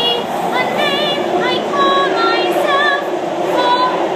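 A woman singing high, wordless notes with a wide vibrato, sliding up into several held notes, over the steady rumble of a moving subway car.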